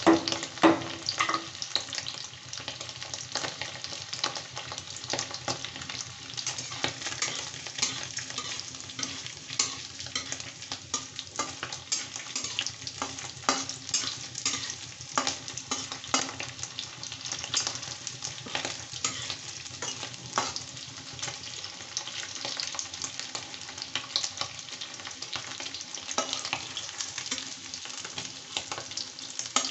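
Paneer cubes frying in mustard oil in a wok: the hot oil sizzles with constant sharp crackling pops, while a metal spatula stirs the pieces and scrapes against the pan.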